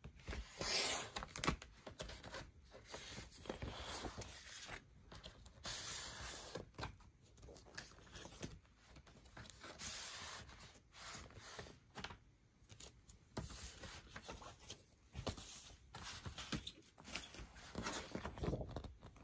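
Paper and card being handled: the glossy card gatefold sleeve and printed paper insert of an LP rustle, slide and scrape in irregular bursts, with sharp little taps and clicks throughout.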